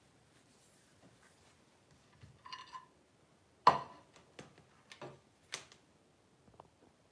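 Sharp knocks and clicks of hard objects being handled in a kitchen: one loud knock about halfway through, followed by four or so lighter ones. Just before them comes a brief high tone.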